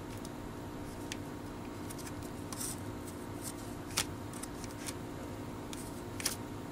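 Cardboard 1988 Donruss baseball cards being handled: faint scattered rustles and small clicks as the cards are flipped and moved between the fingers, the sharpest click about four seconds in, over a steady low hum.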